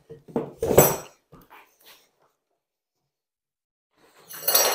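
Wooden workpiece knocking against the workbench as it is turned over and set down, a few knocks in the first second. Near the end comes a short clatter with a metallic ring, as steel tools on the bench clink together when one is picked up.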